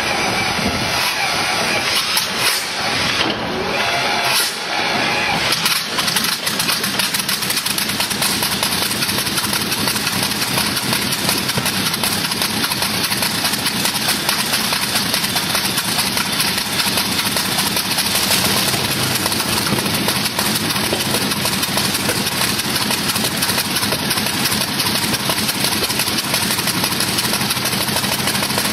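A 27-litre, liquid-cooled 12-cylinder aero engine with its propeller, running on a test stand. It fires unevenly for the first several seconds as it starts, then settles into a steady run as the propeller spins up.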